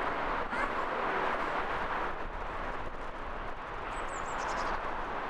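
Boeing 777F freighter's GE90 jet engines giving a steady, even roar on final approach. About four seconds in, a small bird gives a few short, high chirps.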